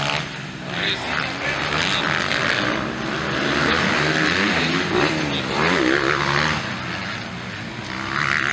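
Engines of 250cc motocross bikes racing on a dirt track, their pitch rising and falling as the riders open and close the throttle.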